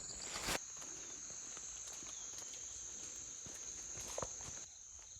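Insects keeping up a steady high-pitched drone, which fades near the end, with faint footsteps on a wet path.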